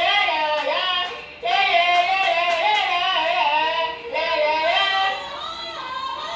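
A young boy singing a melody, with two short pauses about a second and a half in and again about four seconds in.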